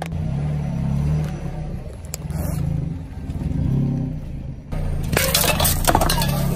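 A car's engine running low and steady as it creeps forward, then about five seconds in, a dense burst of cracking and crackling as the tyre crushes aluminium drink cans and the soda sprays out.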